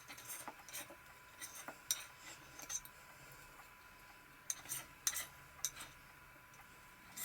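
Scattered light taps and clicks of a kitchen knife and utensils against a chopping board and dish while octopus is cut and prepared. The taps come in two loose clusters, the second about halfway through.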